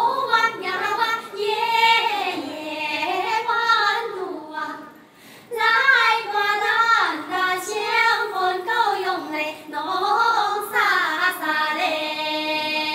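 A group of women singing a folk song together in high voices, with a short break about five seconds in.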